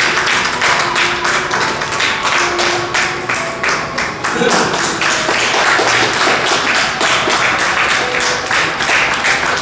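Upbeat background music with a fast, sharp percussive beat and a few held notes.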